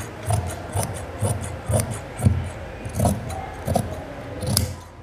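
Scissors cutting through cloth: a steady run of snips, about two a second, as the blades close through the fabric stroke after stroke.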